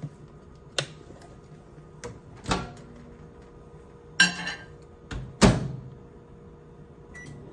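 Kitchen microwave being handled: a few knocks on the counter, the door pulled open with a rattle about four seconds in and shut with a loud thump a second later, then a short keypad beep near the end.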